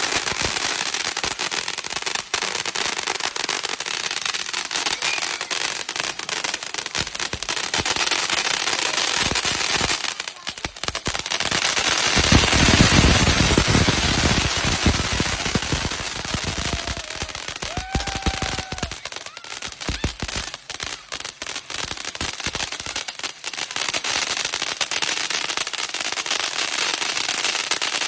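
Fireworks crackling and popping in a dense, rapid, unbroken stream, swelling louder with deeper booms a little before the middle.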